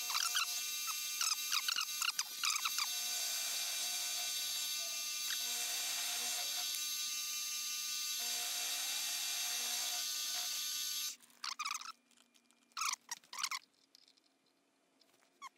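Milling machine running with an end mill cutting a wrench flat on a steel shaft, the cut squealing on and off for the first few seconds. The machine stops suddenly about eleven seconds in, followed by a few light clicks and taps.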